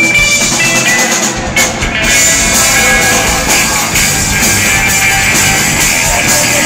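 Live rock band playing loud, with electric guitar and a drum kit with cymbals. After a short break in the low end about a second in, the full band comes back in hard about two seconds in.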